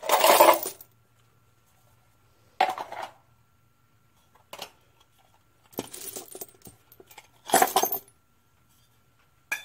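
Small metal carburetor parts (valve discs, springs and screws) clattering as they are tipped out of a tin can onto a rag-covered workbench and handled. The clatter comes in several short bursts, the loudest right at the start.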